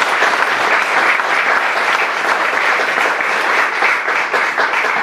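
Audience applauding: many hands clapping together, steady and loud.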